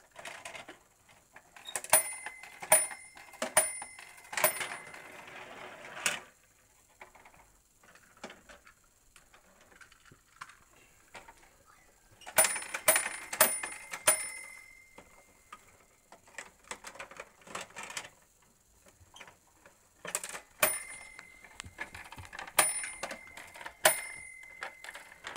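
A small metal bell on a vintage Fisher-Price parking garage toy dinging in three quick runs of four or five strikes, each ring lingering briefly, with plastic clicks and clatter from the toy between them.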